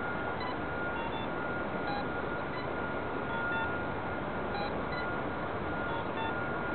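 Multicopter's brushless motors and propellers running, heard through the small onboard camera's microphone as a steady, even rushing noise with a constant high whine. Short electronic-sounding blips are scattered through it.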